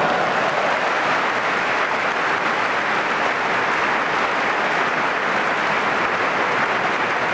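Tennis crowd applauding a point just won, a steady dense wash of clapping.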